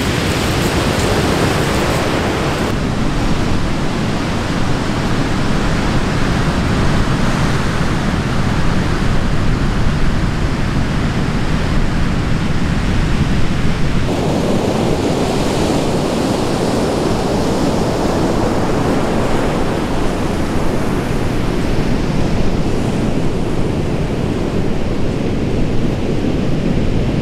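Wind blowing on the microphone over the steady noise of ocean surf breaking on the shore. The mix changes abruptly twice, once about three seconds in and again about halfway through.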